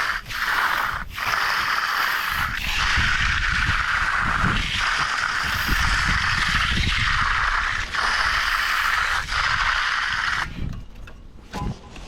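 A hand tool scraping across concrete in long, repeated strokes, with a short break every second or two; it goes quieter near the end.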